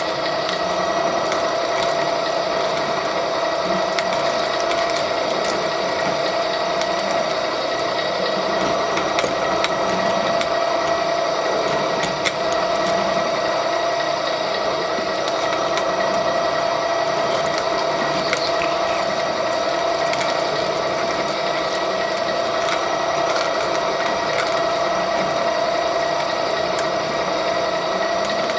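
Gear-driven REX 6590 pipe threading machine running steadily, turning a large pipe in its chuck while the wheel pipe cutter is fed in to cut it. It gives a steady whine with faint ticking.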